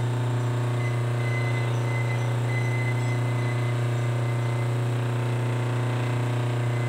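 Three-phase induction motor running on a capacitor-type single-phase-to-three-phase converter, giving a loud, steady electrical hum.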